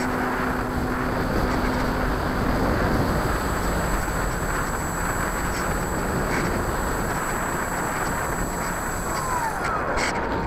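RC airplane's nose-mounted propeller and motor running, with wind rushing over the onboard camera, as the plane lifts off from grass and climbs into a steep bank. A steady motor note is heard for the first few seconds.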